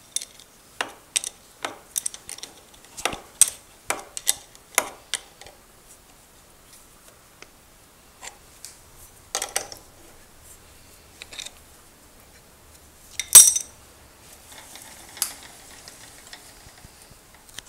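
Metal-on-metal clinks and clicks from adjusting a lathe's toolpost and cutter by hand. A quick run of sharp clicks, about two to three a second, fills the first five seconds. A few scattered clinks follow, one louder knock about 13 seconds in.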